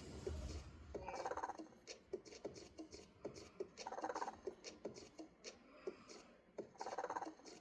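Vector robot's synthesized snoring: three short, soft snores about three seconds apart. Many small clicks and ticks from the Emo desktop robot's movements run between them.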